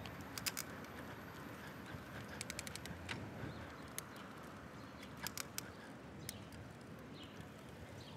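Faint background noise with scattered light clicks and ticks: a few single clicks and two quick clusters, about two and a half and five seconds in.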